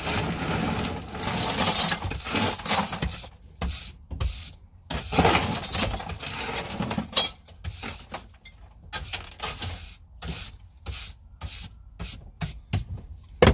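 Scraping and rubbing, then a run of short irregular clicks and clatters from about seven seconds in: leftover bits and pieces being scooped out of a toolbox and thrown away.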